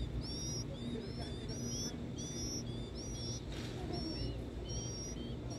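Nestlings begging for food: a steady run of short, high peeping calls, about two a second, over a low steady rumble.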